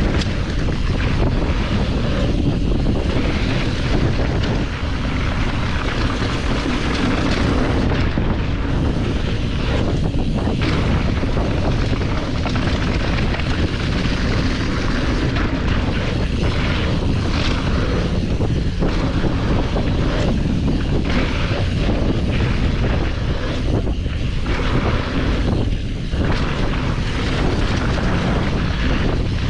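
Wind buffeting the microphone: a loud, steady rumbling rush with no let-up.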